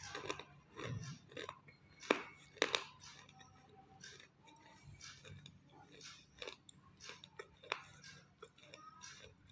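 A person crunching and chewing pieces of half-roasted clay: irregular crisp crunches, the loudest two a little after two seconds in.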